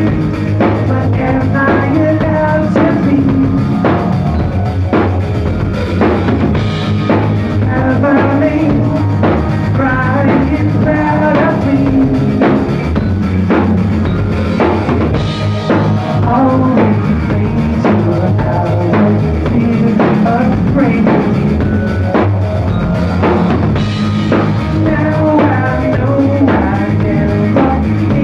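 Rock band playing live: a drum kit driving a steady beat under distorted electric guitars.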